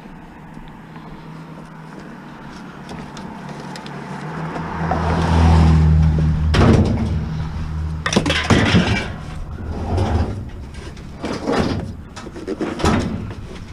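A vehicle engine hums and swells loudest about five seconds in, then scrap metal pieces are handled and loaded, giving a series of bangs and clatters.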